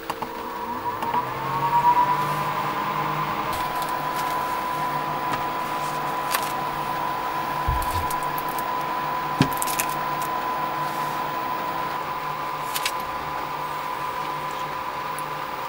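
Small electric fan motor whirring up to speed about a second in, then running with a steady whine. A few light clicks and a soft thump of packages being handled.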